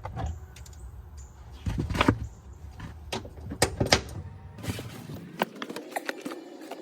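Irregular clicks and knocks of hand tools and metal parts being handled during work on a car's rear strut mounts, with two louder knocks about two and four seconds in.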